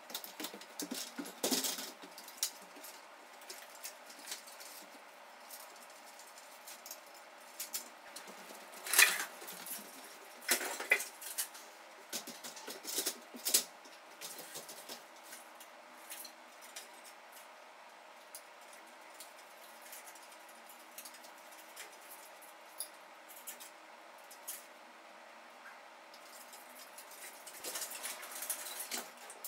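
Scattered work noises: rustling, light clinks and knocks from hanging a sculpture and moving a metal stepladder. A few louder knocks are spread through, with a busier cluster near the end, over a faint steady hum.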